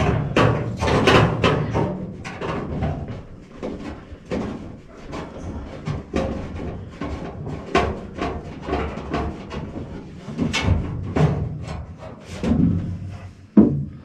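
Irregular knocks and clatter of an air-conditioner evaporator coil and its sheet-metal housing being handled and fitted into place on top of a furnace.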